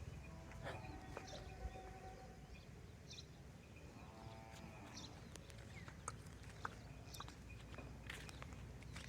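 Faint farm-animal calls: one drawn-out call at the start and another about four seconds in, with scattered short clicks and high chirps.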